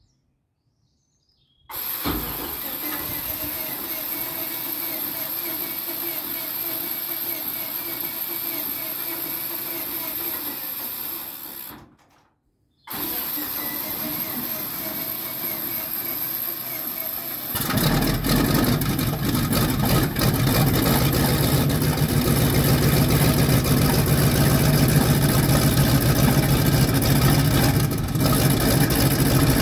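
A steady mechanical drone, broken by a short drop-out, then a WW2 Sherman tank's engine starts a little over halfway through and keeps running, much louder and deeper than before.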